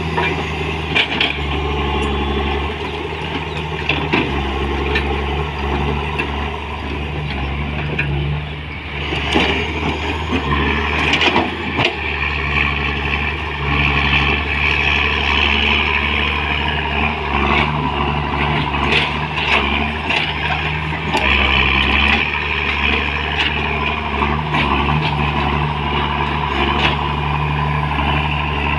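Komatsu PC200 crawler excavator's diesel engine running steadily under load as the machine digs and swings. Frequent short clanks and knocks sound over it.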